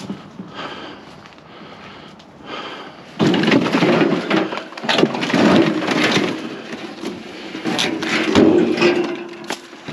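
Green plastic-tub wheelbarrow pushed over cracked asphalt, its wheel rolling and its tub and wooden handles rattling. The rolling starts loudly about three seconds in, after quieter handling, and goes on with many small knocks.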